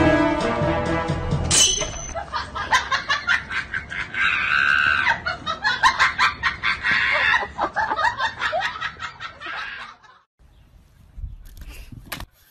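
Music for the first couple of seconds, then a long run of fast, cackling laughter that stops about ten seconds in.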